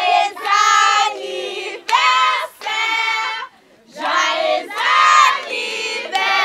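A group of voices singing together in chorus, in phrases of about a second with short breaks and a brief pause about three and a half seconds in.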